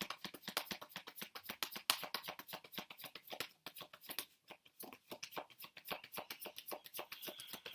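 A tarot deck being shuffled by hand: a rapid patter of card clicks, thinning out and growing fainter after about four seconds.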